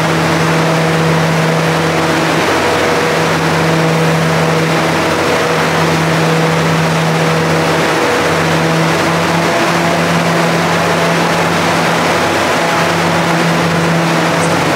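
Bombardier ALP-45DP dual-mode locomotive idling in diesel mode, its diesel engine and cooling fans making a steady, loud hum over a noisy rush of air. This unit's diesel cooling fans are unusually noisy.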